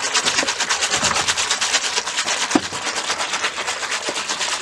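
Wooden molinillo twirled fast between the palms in a glazed clay pot, frothing a drink: rapid, even swishing and sloshing strokes, several a second, with one sharper wooden knock against the pot about two and a half seconds in.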